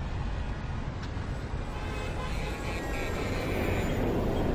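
Sound effect of a jet airliner flying past: a steady rushing rumble that swells slightly near the end.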